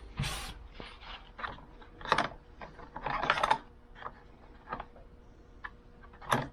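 Irregular clicks and clatter of hard objects being handled: a string of short knocks, with louder clusters about two, three and six seconds in.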